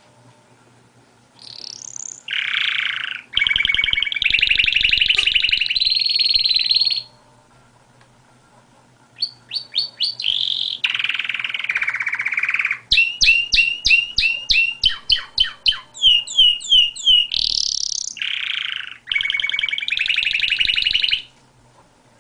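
Domestic canary singing: two long song phrases of fast rolling trills and rapid repeated sweeping notes, with a pause of about two seconds between them.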